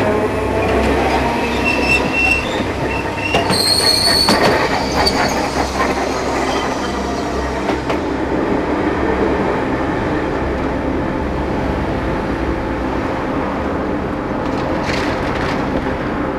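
Enoshima Electric Railway (Enoden) tram running close by, its steel wheels squealing on the rails about two to five seconds in, over a steady running rumble.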